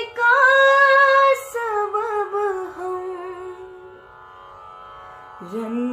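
A woman singing a ghazal phrase in Hindustani classical style: long held notes that slide down step by step with small ornaments. About three and a half seconds in her voice fades, leaving a soft steady drone, and a new low note starts near the end.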